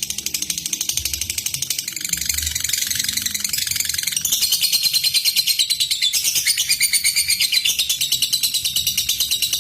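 Lovebird giving a long, unbroken rattling trill (ngekek): a fast string of high notes about ten a second, getting louder about four seconds in. It is the excited call a lovebird uses to challenge a rival.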